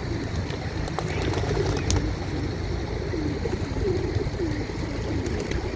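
Several pigeons cooing together, their repeated, overlapping coos running on without a break over a steady low rumble.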